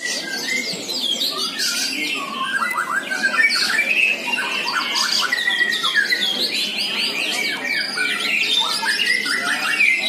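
Dense chorus of many caged competition songbirds singing at once: fast, overlapping whistled notes, trills and chattering calls with no pause.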